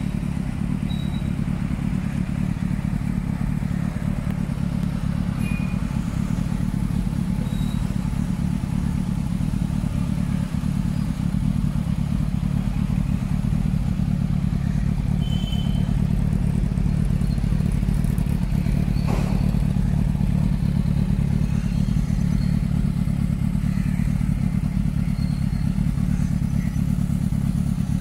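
Kawasaki Z900's 948 cc inline-four engine idling steadily through an aftermarket Akrapovic exhaust, with no revving. It gets slightly louder about eleven seconds in.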